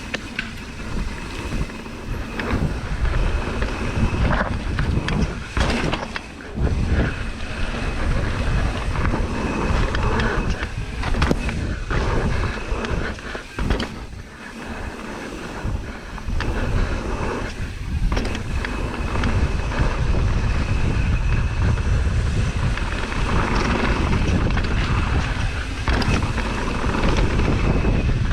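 Mountain bike descending a rough downhill trail: wind buffeting the microphone and a deep rumble of the tyres on dirt, broken by frequent sharp knocks and rattles as the bike hits bumps and jumps. A faint steady high whine runs under it.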